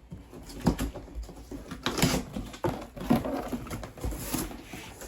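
Knocks and rustles from the scooter box and its packaging being handled, several short, sudden sounds about every half second to a second.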